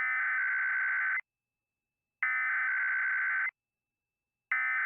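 Emergency Alert System SAME header data burst: a steady warble of two alternating tones, sent as repeated blocks about a second and a quarter long with a second of silence between. Two full bursts and the start of the third are heard. This is the digital header that opens an EAS alert, here a Required Weekly Test.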